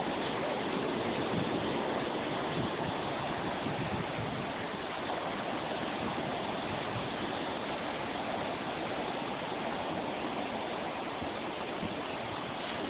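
Steady rushing wash of sea waves on the beach, without a clear rhythm.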